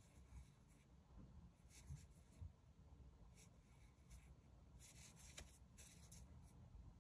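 Very faint rubbing of a white cotton glove sliding over the closed Microtech Troodon OTF knife's aluminium handle as it is turned in the hand. It comes as a few short scrapes, most of them clustered about five seconds in.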